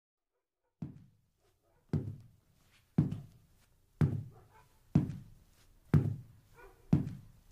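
Slow, heavy footsteps: seven even thuds about a second apart, starting almost a second in, each with a short low ring after it.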